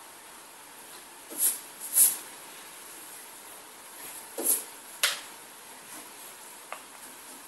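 A person taking about four short, sharp breaths close to the microphone, the second the loudest, over a steady faint hiss of the recording.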